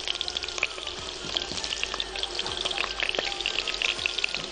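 Raw potato pieces sizzling and crackling in hot oil in a wok, with a steady patter of small pops from the spitting oil.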